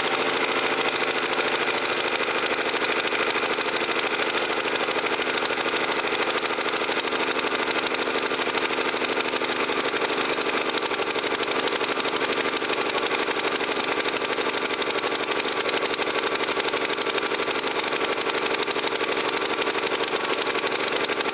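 Snowblower's small gasoline engine running steadily at idle after a choked cold start; the owner suspects a faulty carburetor float valve.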